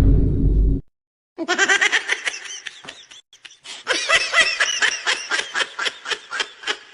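A laughter sound effect: rapid, high-pitched pulses of laughing, about five or six a second, with a short break partway through. It follows the cut-off tail of a loud, bass-heavy noise that ends abruptly just under a second in.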